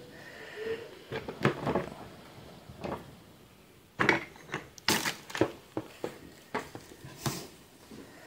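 Plastic toy dinosaurs being set down among glass pebbles, stones and pieces of wood: a scattering of separate light clicks and clacks, the sharpest a little after four to five seconds in.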